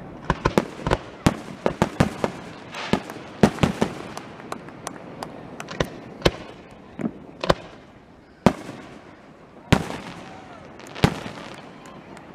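Aerial fireworks going off: a quick run of sharp bangs and crackles for the first few seconds, then fewer, louder single booms spaced about a second apart near the end.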